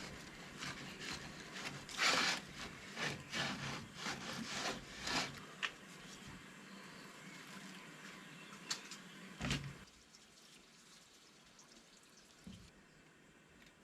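Filleting knife cutting and scraping through a hapuku on a board, with wet handling of the flesh, in a run of short strokes. A single heavier knock comes near the end, and then the sounds die down.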